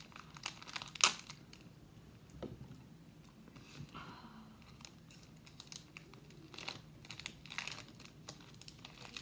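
Foil Pokémon booster pack wrapper crinkling and tearing as it is opened by hand, in scattered short rustles with a sharp click about a second in.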